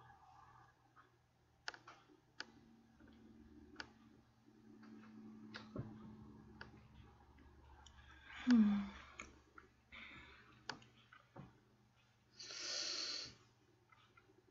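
A woman yawning: a short voiced groan that falls in pitch about eight seconds in, the loudest moment, then a long breathy rush of air near the end, among scattered light clicks.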